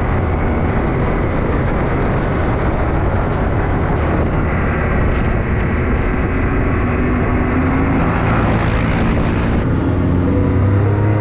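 Can-Am Maverick X3 XRS side-by-side's turbocharged three-cylinder engine running at a steady cruise on a dirt road, under a heavy rush of wind and tyre noise; the engine's drone comes through more clearly in the last few seconds.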